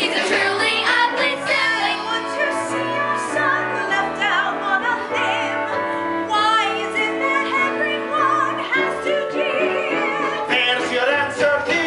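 Stage-musical number: voices singing with vibrato over sustained accompaniment chords.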